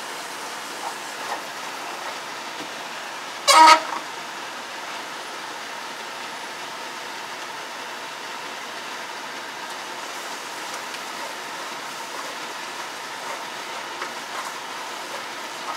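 Curry paste frying in oil in a pot over a gas flame, with a steady sizzle throughout. About three and a half seconds in, a single short horn toot cuts in, the loudest sound here.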